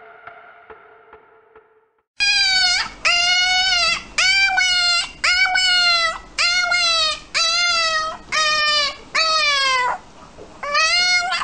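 Puppy crying in a run of short, high-pitched yelps, about one a second, each call dropping in pitch.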